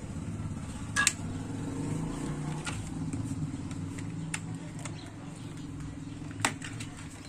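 A low, steady motor hum, louder in the middle and easing near the end, with a sharp click about a second in and another near the end.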